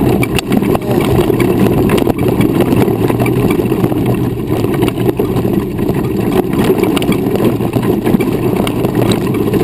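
Steady low rumble of a wheelchair's wheels rolling over a dirt and gravel trail, mixed with wind on the microphone, with a few small knocks from bumps.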